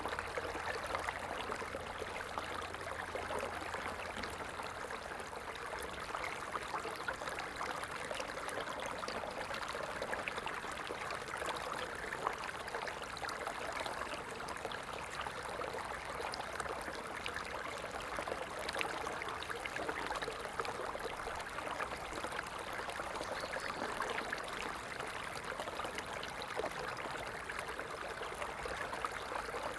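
A stream flowing steadily: an unbroken rush of water dotted with many small splashes.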